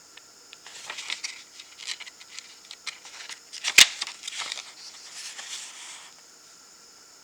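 Paper guidebook pages being handled and turned, crisp paper rustling, with one sharp click near the middle as the booklet is handled.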